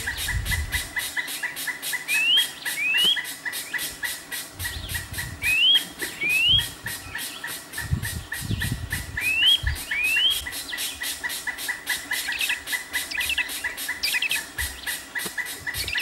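Insects chirping in a steady pulse of about four a second, with a bird calling a rising whistled note in pairs, three pairs a few seconds apart. A few brief low rumbles sit underneath.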